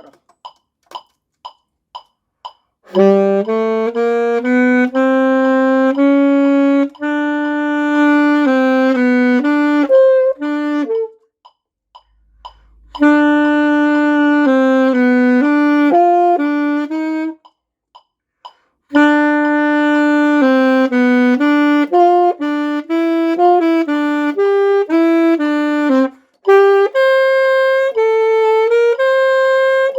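Alto saxophone played by a beginner, a simple melody in held notes, in phrases broken by short pauses. A few faint, evenly spaced ticks come before the first phrase.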